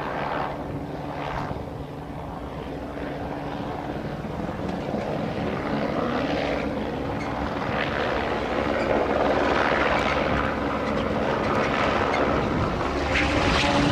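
Distant engine drone, steady in pitch, growing gradually louder, with a rushing noise over it.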